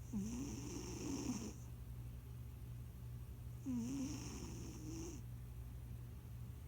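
A plump domestic cat snoring in its sleep: two long snoring breaths about three and a half seconds apart, each with a wavering pitch and a high hiss, over a steady low hum.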